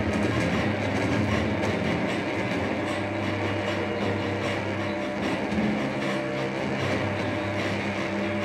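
Improvised noise performance in which an electric guitar and metal objects are struck with mallets, making a dense, continuous clattering wash over a steady low drone.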